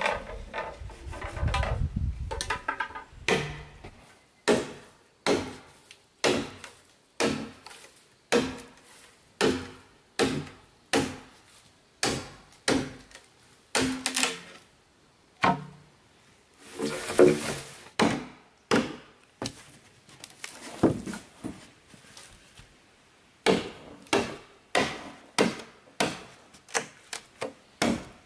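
Machete chopping into a green bamboo pole: a steady run of sharp knocks, each ringing briefly, about one to one and a half a second. A longer rasping stretch comes about 17 seconds in, and the strokes come quicker near the end. The first few seconds hold low rumbling knocks.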